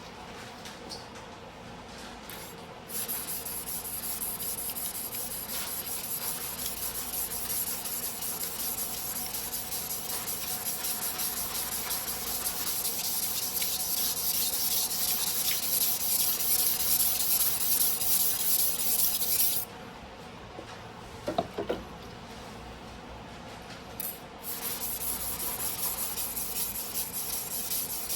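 Steel blade of a 270 mm sujihiki single-bevel knife ground by hand on a whetstone: a steady scraping of metal rubbed back and forth on the stone. The strokes stop a little before the 20-second mark, a short ringing clink comes in the pause, and the grinding starts again about five seconds later.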